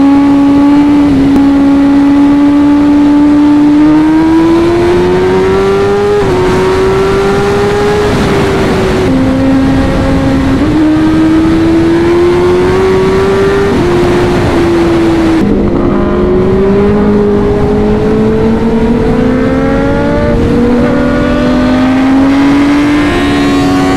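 Kawasaki ZX-10R's inline-four engine running hard at highway speed over heavy wind rush. Its pitch climbs steadily under throttle and drops back sharply a few times at gear changes.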